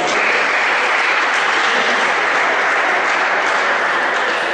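Spectators applauding: a steady run of clapping that holds at an even level.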